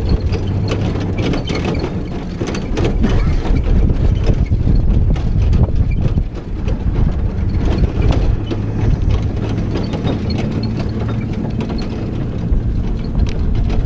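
A horse-drawn carriage rolling behind a driven horse: the wheels rumble and the vehicle and harness rattle and knock, mixed with the horse's hoofbeats.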